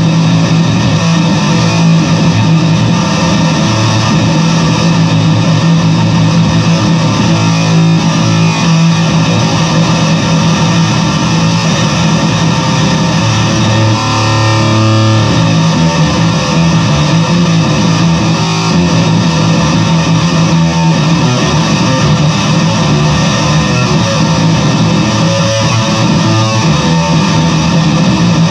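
Fender Squier VI six-string bass played through a fuzz pedal: held low notes with thick, heavy distortion, the note changing about halfway through.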